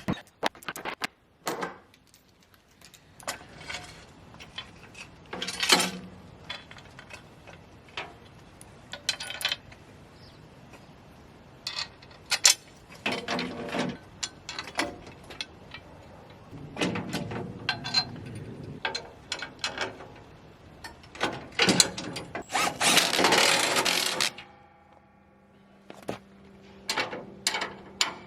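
Ratchet wrench clicking and metal parts clanking in irregular bursts while a steel tow bar is bolted onto a wood chipper's frame.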